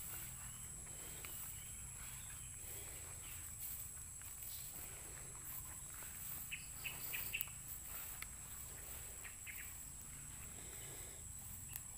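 Steady high-pitched insect chorus with a few short bird chirps, a quick run of them a little past the middle.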